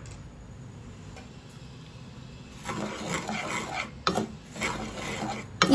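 Wooden spatula stirring and scraping dry roasted semolina mixed with sugar and coconut in a pan: a gritty rubbing that starts about halfway through, after a quiet stretch.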